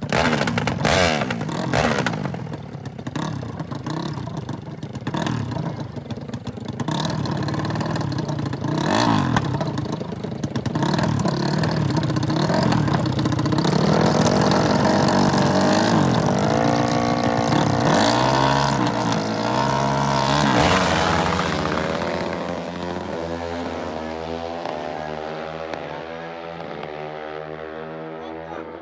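Two dirt bike engines revving at a drag-race start line: sharp throttle blips at first, then held at high revs. After about 20 s they launch and run up through the gears, the engine note stepping and fading as they pull away.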